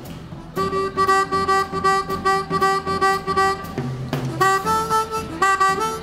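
Harmonica playing one long held note, then, after a brief break near the four-second mark, a run of shorter notes stepping upward.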